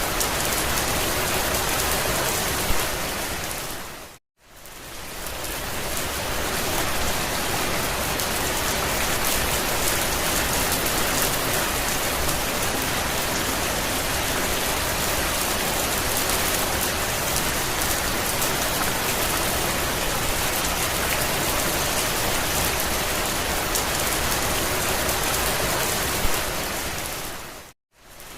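Steady rain drumming on a campervan roof. It dips briefly to silence about four seconds in and again near the end, each time just after a small click, then comes back.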